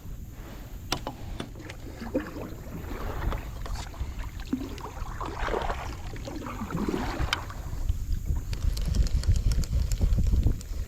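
Wind buffeting the microphone as a low rumble that grows stronger near the end, with water sloshing around a kayak and a few sharp clicks.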